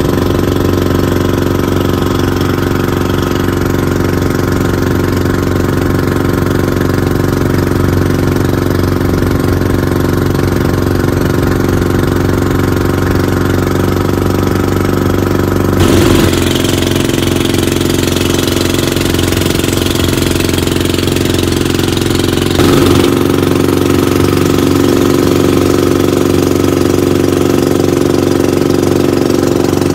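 Bangka outrigger boat's engine running steadily while underway at sea. Its sound changes abruptly twice, about halfway through and again some seven seconds later.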